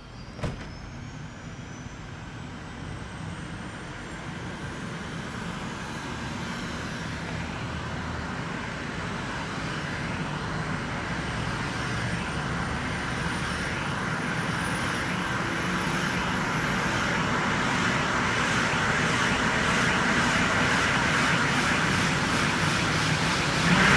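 Bell 429 helicopter's Pratt & Whitney PW207D turboshaft starting: a high whine that climbs steadily in pitch as the engine spools up, growing steadily louder as the rotor begins to turn. A single sharp click about half a second in.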